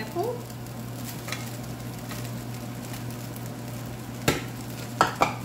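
Fried rice sizzling in a hot frying pan as pineapple chunks are added, over a steady low hum. Three sharp knocks come near the end.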